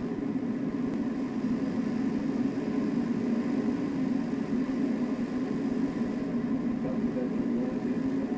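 Steady low mechanical drone, unchanging throughout.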